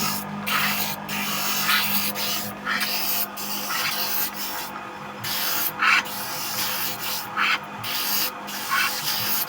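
Repeated rasping, scraping strokes on bamboo, about one a second with short breaks between them, as the bamboo is shaved or smoothed while being shaped.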